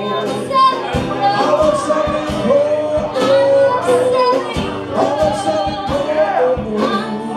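Live band: a woman singing into a microphone over two strummed acoustic guitars and a drum kit.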